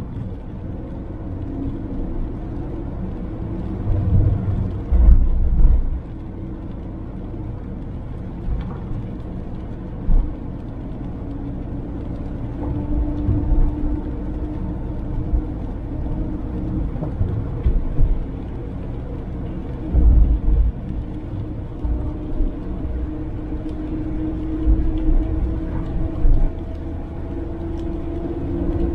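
Suzuki Jimny driving along a highway: steady engine and road hum, its pitch creeping up in the second half as it picks up speed, with a few short low thuds.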